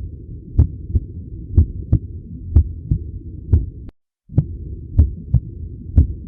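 Normal heart sounds heard by stethoscope auscultation: regular lub-dub pairs of the first and second heart sounds, about one beat a second, over a low steady hum. The recording breaks off into silence for a moment about four seconds in, then resumes.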